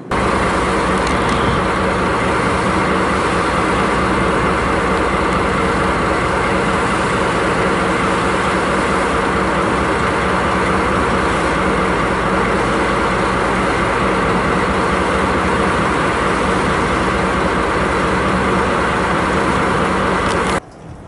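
JR Freight DD51 diesel-hydraulic locomotive's twin V12 diesel engines running loud and close, a steady drone that holds one pitch throughout. It cuts off suddenly near the end.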